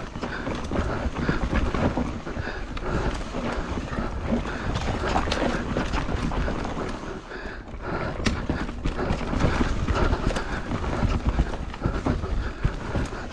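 Hardtail mountain bike clattering down a rough dirt trail: rapid knocks and rattles from the tyres hitting roots and ruts and the bike shaking, over a constant low rumble.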